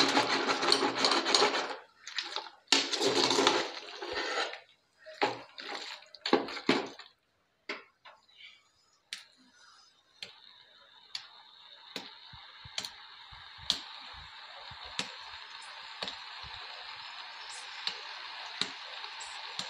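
Wet chicken pieces in masala being stirred with a ladle in an aluminium pot, in loud sloshing, scraping bursts through the first seven seconds. After a brief lull, the pot sizzles steadily with sharp pops about once a second as the chicken starts to cook.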